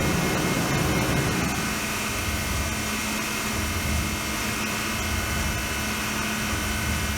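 CNC mill cutting a cast saw carriage with a carbide tool: steady machine noise with high whining tones. About a second and a half in, the rough cutting rumble drops away and a steady hum carries on.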